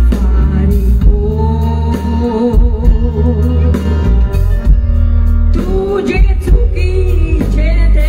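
A woman singing live into a microphone over a backing band, amplified through the stage PA, with steady bass and drum beats. She holds long notes with vibrato.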